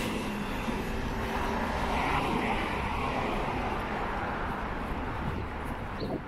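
Steady engine rumble without a clear pitch, easing off slightly near the end.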